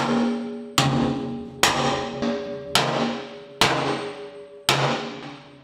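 Six steady sledgehammer blows, about one a second, on a steel mounting bracket welded to the back of a loader bucket. Each blow rings out and fades. The bracket's weld has been cut most of the way through with an angle grinder, and it is being knocked off the bucket.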